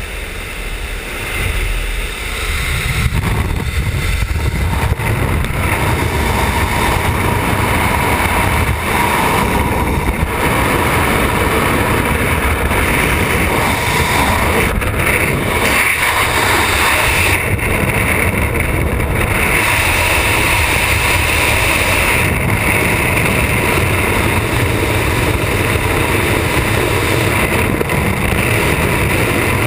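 Freefall wind rushing over a helmet-mounted camera, a loud steady rush of air. It swells about two seconds in as the skydiver leaves the aircraft's open door and then holds without a break.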